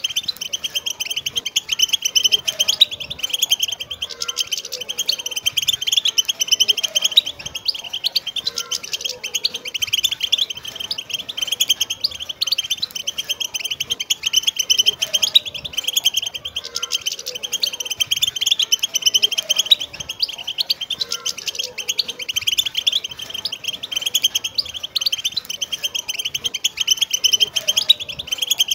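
A group of wild European goldfinches singing together: a dense, unbroken chorus of quick high twittering notes.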